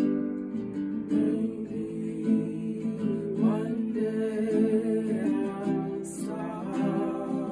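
Acoustic guitar and ukulele strummed together, with a long wordless sung "ahh" held over the chords and sliding in pitch twice.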